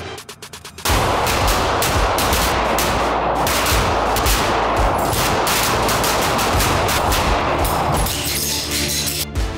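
Several semi-automatic pistols firing rapidly together on an indoor range. About a second in, the shots start to overlap into a continuous volley that lasts about seven seconds, then thins out near the end. Background music runs underneath.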